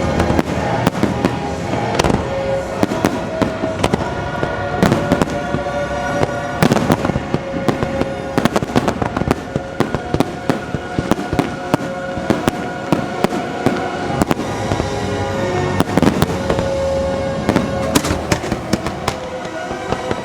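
Fireworks going off in rapid, irregular bangs and crackles throughout, over the music of a fireworks show.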